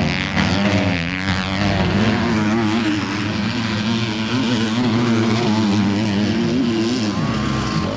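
Motocross race bikes' engines at high revs, the pitch rising and falling steadily as the throttle is worked around the track, with a sharp dip near the end.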